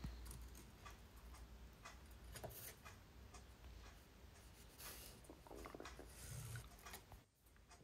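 Faint scratching of a Sharpie marker tracing around an exhaust flange on a stainless steel sheet, with a few light clicks from handling the parts.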